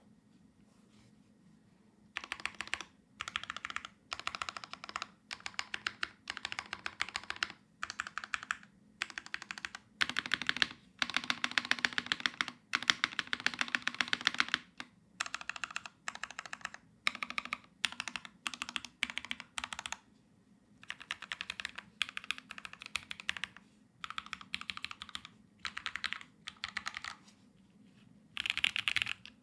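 Typing on an Ayleen TKL mechanical keyboard with Everglide Aqua King linear switches in an aluminium plate and GMK keycaps. After a quiet first two seconds come fast runs of keystrokes in short bursts with brief pauses between them, and a longer unbroken run about ten seconds in.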